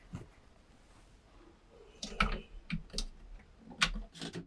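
Several sharp, separate clicks of switches being flipped off, cutting the boat's electrical power.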